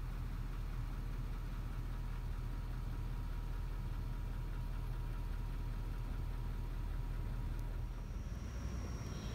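An engine idling steadily, a low rumble with a faint steady hum above it.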